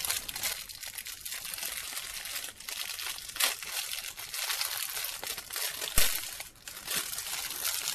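Clear plastic bag crinkling and crackling as hands pull it open and off a squishy toy, with a single sharp click about six seconds in.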